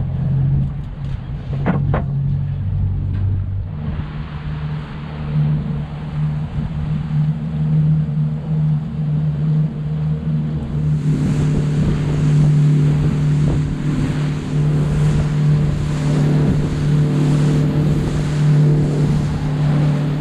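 A small open fishing boat's engine running steadily under way, with water rushing along the hull.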